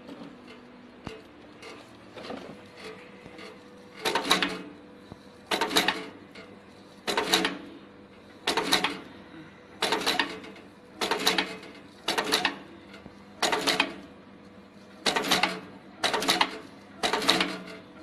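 Automatic snap fastener attaching machine cycling: a sharp metallic clack with a short rattle about every second and a half, starting about four seconds in after a few lighter clicks. A faint steady hum runs underneath.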